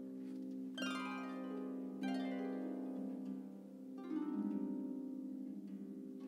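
Solo concert harp playing a brief interlude between songs: plucked chords and quick arpeggios that ring on, with new chords struck about a second in, at two seconds and again at four seconds.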